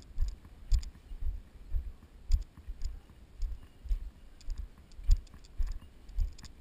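Walking footsteps through dry grass, about two steps a second, heard as low thumps through the body-worn camera, each with a light crackle of dry grass.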